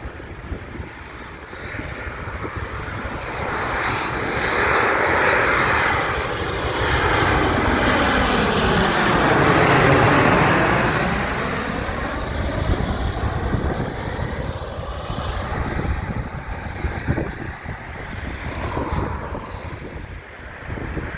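Airliner passing close by, its engine noise swelling to a peak about ten seconds in and then fading away.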